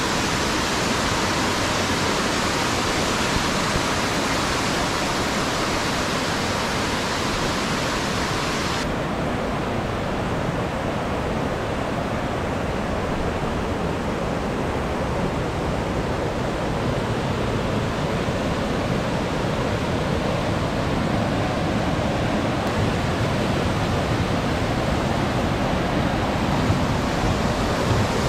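Mountain stream rushing over boulders and rapids, a steady unbroken noise of running water. About nine seconds in, its high hiss drops away abruptly, leaving a duller rush.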